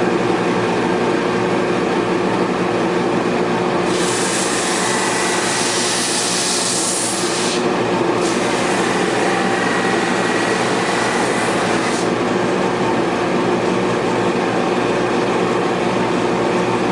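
Grizzly G1079 drum sander running steadily, with its dust collector going, as plywood is fed through on the conveyor. A loud hiss of sandpaper cutting the wood comes in about four seconds in, breaks off briefly in the middle, and stops about twelve seconds in, leaving the steady machine hum.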